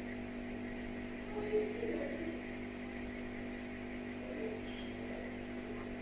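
Steady electrical hum made of several even tones, with a few faint short sounds about one and a half to two seconds in and again near four and a half seconds.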